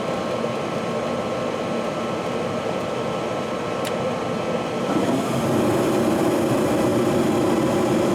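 Furnace running with a steady mechanical hum. About five seconds in it gets a little louder, with a fuller low hum.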